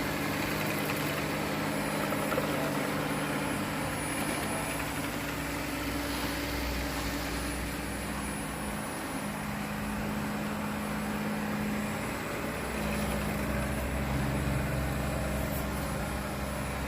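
Fakir Robert RS 770 robot vacuum running: a steady whir with a low hum whose pitch shifts slightly every few seconds.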